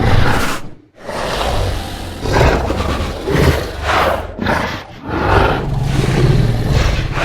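Designed Allosaurus creature sound effects: a string of about four deep roars and growls, separated by short breaks, the last one long.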